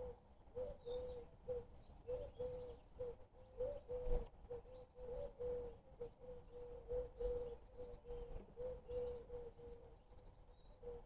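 Pigeon cooing: a long run of short low coos on one pitch, about two a second.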